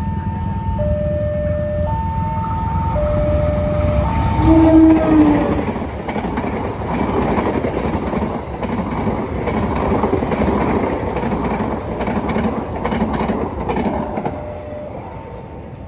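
Level-crossing warning alarm alternating steadily between a high and a low tone, then a short blast of the train's horn about five seconds in. The KA Pasundan passenger train then runs past at full speed, its coaches rumbling and clattering over the rails, and the crossing alarm comes through again near the end.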